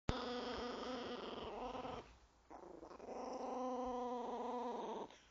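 Chihuahua growling: two long growls with a short pause between, the first starting right away and the second about three seconds in. It is a warning growl, the dog guarding food from a cat.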